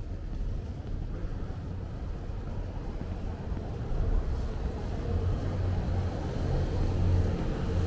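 Steady low rumble of outdoor street ambience, swelling slightly in the second half.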